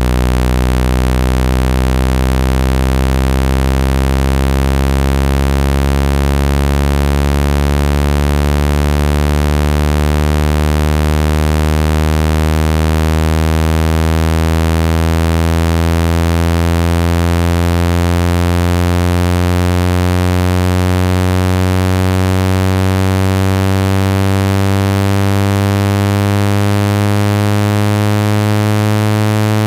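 Speaker-cleaning test tone: a loud, buzzy electronic tone that slowly and steadily rises in pitch through the low range. It is a frequency sweep meant to shake water and dust out of a phone speaker.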